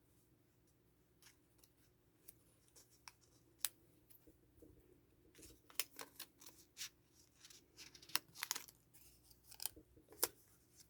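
Faint handling noise: scattered sharp clicks and crinkly ticks, sparse at first and thicker in the second half.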